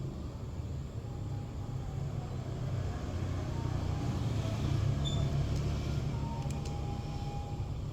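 Steady low rumble, like a vehicle engine running, with a few faint small clicks toward the end.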